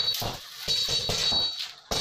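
Thin iron rods rattling, scraping and clinking against each other and the concrete floor as long lengths are swung and handled, with a few sharp metallic knocks.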